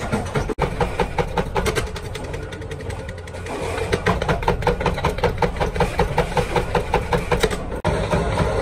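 Flywheel-driven mechanical power press running and punching round blanks from sheet metal, a rapid even clatter of about five strokes a second over a steady low hum.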